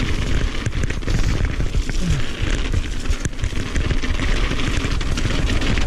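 Mountain bike descending a gravel trail at speed: a steady rumble of wind on the camera's microphone and tyres on gravel, with frequent rattles and knocks from the bike over the rough surface.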